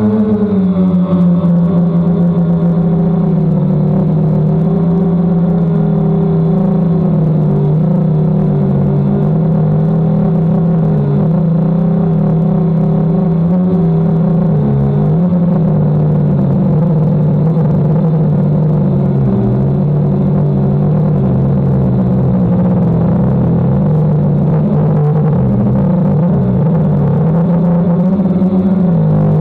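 DJI Phantom quadcopter's propellers and motors humming steadily in flight, the pitch wavering a little as the drone adjusts.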